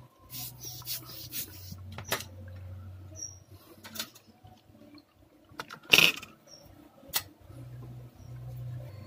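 Small clicks and taps of hand tools working on a laptop motherboard during repair, with one sharp click about six seconds in. A few short, high chirps sound faintly between them, along with an on-and-off low hum.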